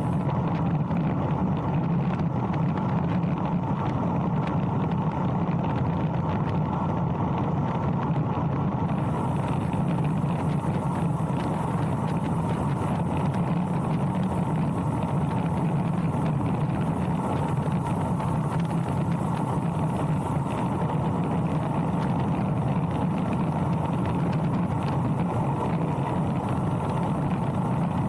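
Steady rush of wind over the bike-mounted camera's microphone together with road-bike tyres humming on asphalt during a fast descent, unbroken throughout.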